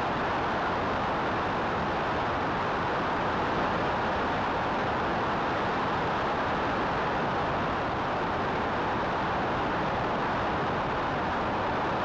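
Steady rush of wind over a wing-mounted camera, mixed with the engine and propeller noise of a Cessna 172 in flight.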